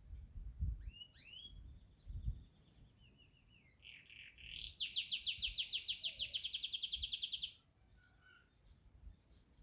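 Yorkshire canary singing one song phrase: sweeping and rising notes, then a fast, even, bright trill of about nine notes a second that stops abruptly. A few faint low bumps sound in the first couple of seconds.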